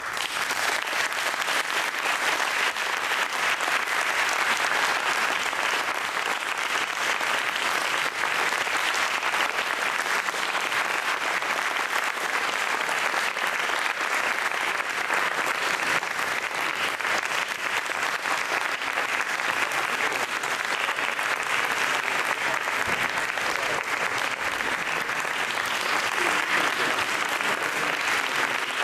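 Audience applauding, breaking out suddenly from near silence and holding at a steady level.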